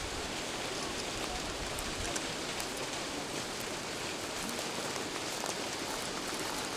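Steady outdoor hiss with no tone or rhythm in it, with wind rumbling on the microphone for the first two seconds and a few faint ticks scattered through.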